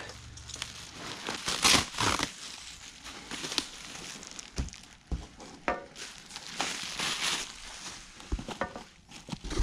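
Plastic bubble wrap and foam packing peanuts rustling and crinkling in irregular handfuls as the packing is pulled out of a cardboard box around coilover shocks.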